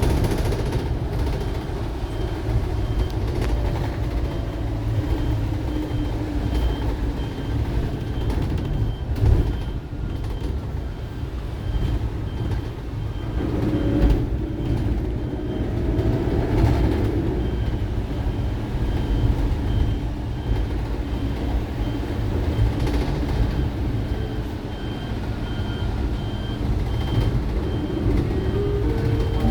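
Electric bus traction motor whine, rising and falling in pitch with speed over a steady road rumble, the motor noise that the uploader calls abnormal. A short high beep repeats at a regular pace throughout.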